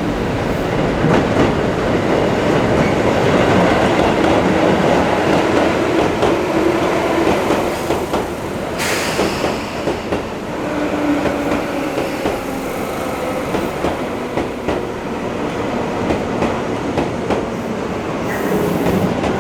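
Electric commuter train moving along the platform, its wheels clattering over rail joints with a faint motor tone; a short hiss about nine seconds in and again near the end.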